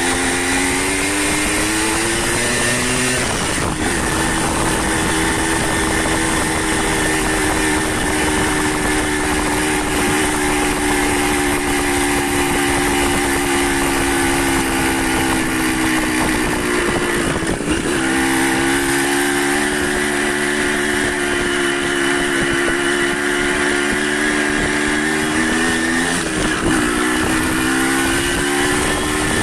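Motorcycle engine running under way, with a steady rushing noise underneath; the engine note drops briefly and climbs again three times, about 4, 17 and 27 seconds in, as the rider changes gear or eases the throttle.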